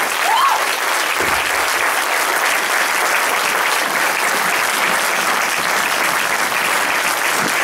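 Audience applauding, a steady, even round of clapping.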